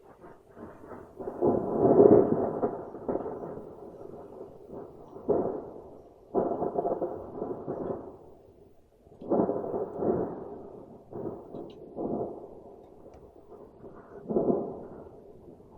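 Thunder: a series of claps and rumbles one after another, the loudest about two seconds in, each dying away over a second or two.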